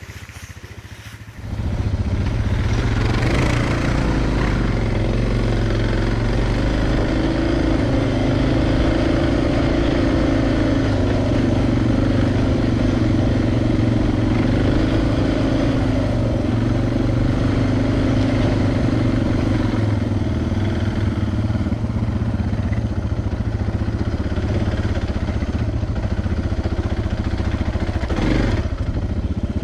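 Suzuki DR650 single-cylinder dual-sport motorcycle engine running while riding off-road, coming in suddenly about a second and a half in, revving up, then holding a steady pull with small changes in speed.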